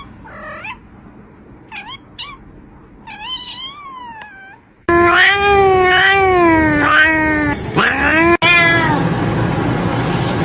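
Domestic cats meowing. First come a few short, faint meows, then after a sudden cut, loud, long, drawn-out wavering yowls.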